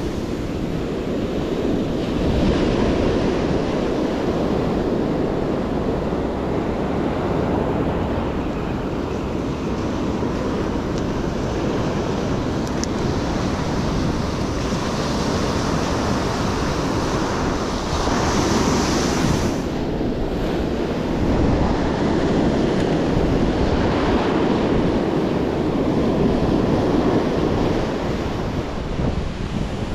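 Ocean surf breaking and washing up a sandy beach in a continuous rush, with wind rumbling on the microphone. A brighter hiss of washing foam swells about two-thirds of the way through.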